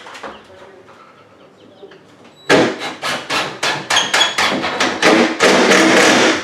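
Rapid, loud knocking blows, several a second, starting about two and a half seconds in and running together into a continuous rattle near the end.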